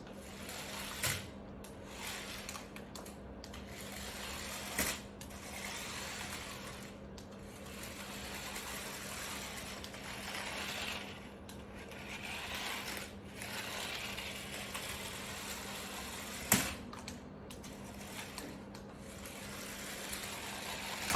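Toy remote-control rock crawler truck's small electric motors and gearbox whirring as it drives, swelling and easing off, with a few sharp knocks, the loudest about three quarters of the way through.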